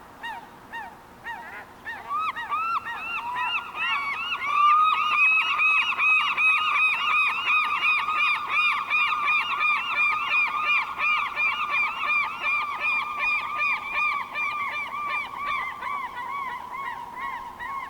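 Seagull calling in a long, fast series of repeated yelping calls, about four or five a second, starting about two seconds in and keeping on without a break.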